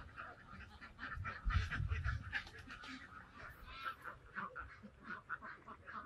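A large flock of domestic ducks quacking continuously, many short calls overlapping.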